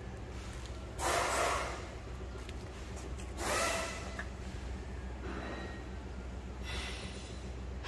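Breathing close to the microphone: a noisy breath roughly every two seconds, over a steady low hum.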